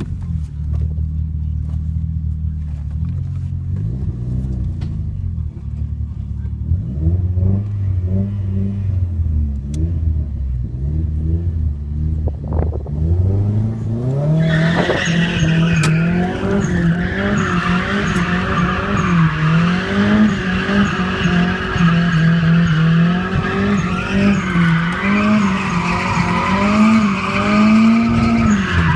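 Nissan Silvia S14's turbocharged SR20 four-cylinder revving, its pitch rising and falling, heard from the passenger seat. About halfway in, the tyres start squealing continuously while the engine is held at higher, fluttering revs: the car is drifting. The revs drop right at the end.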